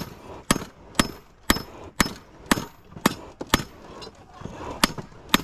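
Hammer blows on hot metal on an anvil, drawing out a knife tang to make it round: about two strikes a second, each with a bright ring, pausing for about a second near the end before the blows resume.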